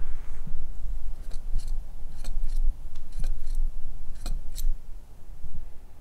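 Mountain-bike rear air shock worked a few millimetres at a time in a lever-operated shock tester, giving short, light smacking clicks, roughly in pairs about once a second, over a low rumble. The light smack comes at the shock's breakaway point, where air equalises between the positive and negative air chambers.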